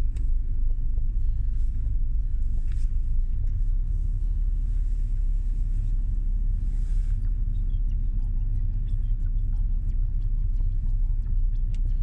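Steady low rumble of engine and tyre noise inside a moving Mercedes-Benz car's cabin as it drives at low speed.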